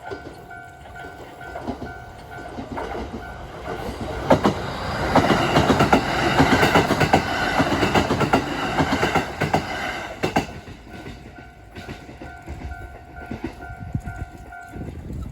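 Japanese railway level-crossing alarm ringing with a steady repeating tone while a Kintetsu Ikoma Line electric train passes over the crossing. The wheels clatter over the rail joints for about six seconds in the middle. The alarm is heard again after the train has gone and stops near the end.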